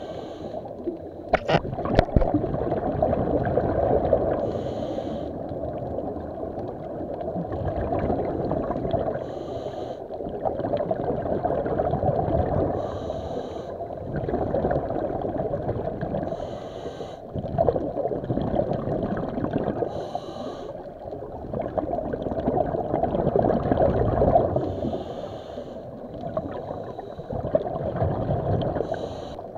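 Slow, regular breathing through underwater breathing gear, a breath about every four seconds, over a steady low rumble of water against the microphone.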